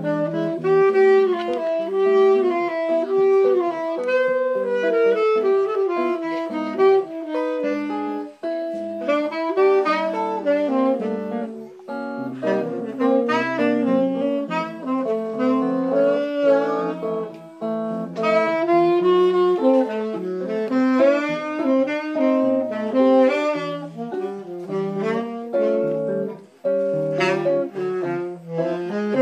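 Tenor saxophone playing a flowing bossa nova melody over chords from a semi-hollow electric guitar (Gibson ES-335), a small live acoustic band without vocals.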